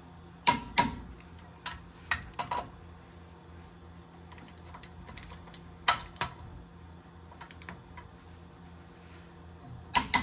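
Click-type torque wrench on the front caliper bracket bolts, clicking as each bolt reaches its set torque of 128 ft-lb. A sharp double click comes about half a second in, lighter metal clicks follow around two seconds, another double click comes near six seconds and one more at the very end.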